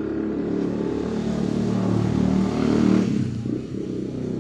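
A motor vehicle passing by: a broad noise swells over about three seconds, then drops away quickly, over a steady low background rumble.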